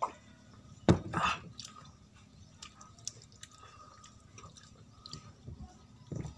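Close-miked mukbang eating sounds: wet chewing and small sticky clicks of fingers picking at fried fish and rice. A sharp knock about a second in is the loudest sound, with another soft thud near the end.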